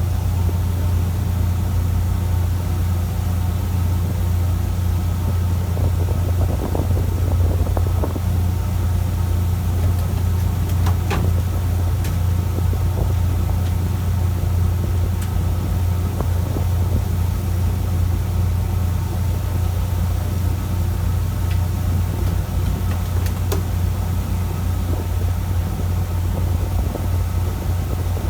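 Fishing boat's engine running steadily: a low, even drone, with a few faint clicks.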